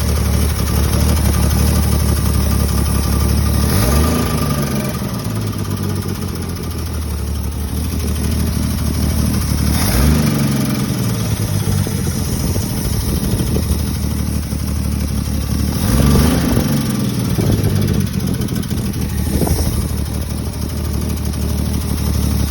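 Freshly swapped Chrysler 225 slant six engine running on its first start, idling steadily with three brief throttle blips. It has a light tick that the owner cannot identify.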